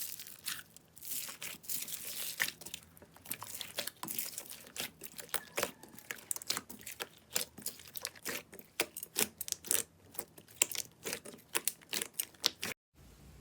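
Slime being pressed and pulled by hand, giving a dense run of small crackles and pops that grow quicker after a few seconds; it cuts off suddenly near the end.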